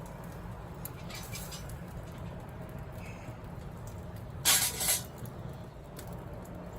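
Lit charcoal from a chimney starter being dumped and arranged on unlit charcoal in a grill's charcoal basket: faint scattered clinks, then a louder brief clatter of coals about four and a half seconds in, over a steady low background rumble.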